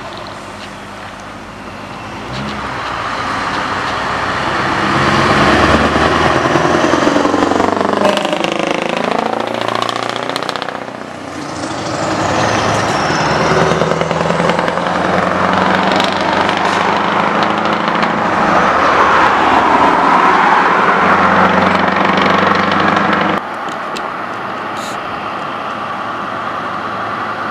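Scania R-series V8 trucks with loud exhaust pipes driving past. The engine sound swells and sweeps by twice, then cuts abruptly near the end to a quieter, steady engine of a truck still approaching.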